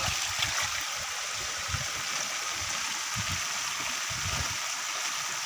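Shallow stream water rushing steadily through a narrow cut in a mud bank.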